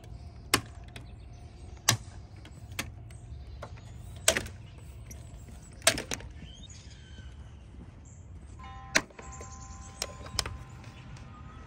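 Rubber roof-channel trim strip on a 2017 Chrysler Pacifica being pried up with a plastic trim tool: a string of sharp clicks and snaps, about nine, as its retaining clips let go, over a steady low rumble.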